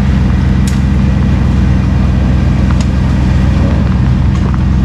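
A vehicle engine running steadily during a winch pull, a low even drone with a few faint clicks.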